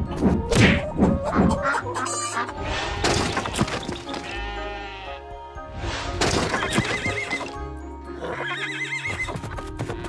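Cartoon background music, with quick sliding tones in the first two seconds.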